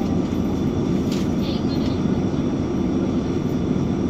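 Engine of an Irisbus Citelis 18 articulated city bus idling while the bus stands at a stop, a steady drone heard from inside the passenger cabin.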